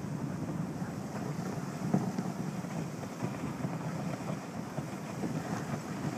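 Dog sled gliding over packed snow: a steady rushing scrape of the runners and the dogs' feet, with wind on the microphone and a single knock about two seconds in.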